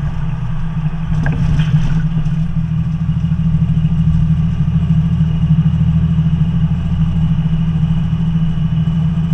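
Semi truck's diesel engine running steadily at road speed, heard inside the cab as a loud low drone. A short, higher-pitched rattle-like noise comes about a second in.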